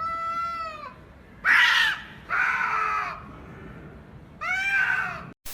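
An animal crying out four times, loud drawn-out calls with the second one rough and harsh, cut off by a short burst of static-like hiss at the very end.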